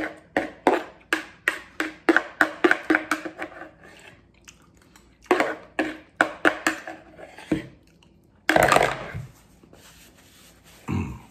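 Metal spoon scraping and clicking against a plastic bowl, gathering the last bits of food in quick strokes of about three a second, pausing, then again in a second run. About eight and a half seconds in, a longer rustle of a paper napkin.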